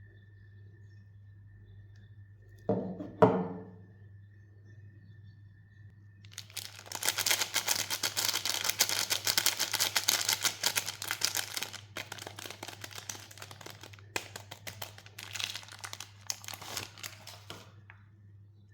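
Soap bar wrapper being unwrapped by hand: two knocks, then several seconds of dense crinkling and tearing of the wrapper, thinning out into scattered crinkles near the end.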